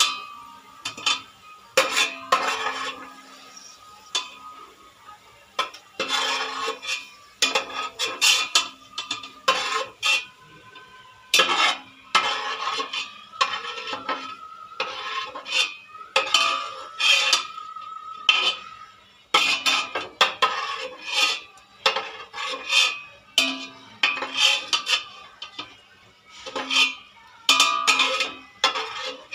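A metal spoon scraping and knocking against the inside of a large metal cooking pot while oil and fried onion bits are stirred, in irregular strokes, some followed by a short metallic ring.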